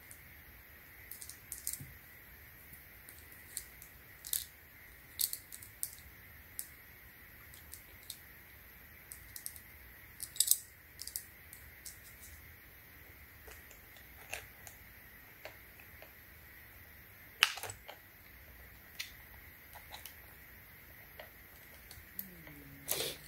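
Steel saw chain being handled and fitted onto a chainsaw guide bar: irregular light metallic clinks and rattles of the chain links, a few louder clacks among them.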